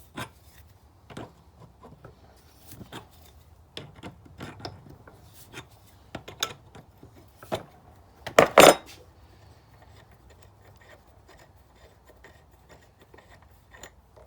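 Hand tools clicking and scraping on metal while working a stripped caliper pin bolt out of a motorcycle brake caliper, in irregular small knocks with a louder clatter of metal a little past halfway.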